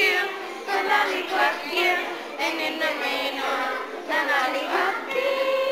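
Children singing together in a school stage musical, a chorus of young voices holding a long note near the end.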